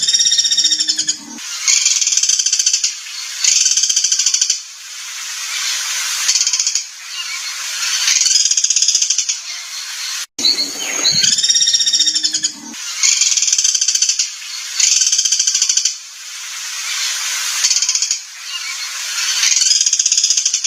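A songbird's rough training song, looped: a few curved whistled notes followed by long rapid trills, the sequence repeating about every ten seconds.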